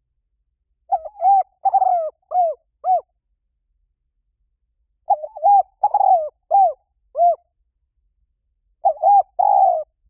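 Spotted dove cooing: three phrases of five or six short arched coos, a couple of seconds apart, the last phrase cut off at the end.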